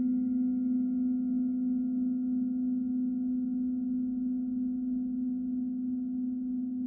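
Tibetan singing bowl ringing: one strong, steady low hum with fainter higher overtones above it, slowly fading.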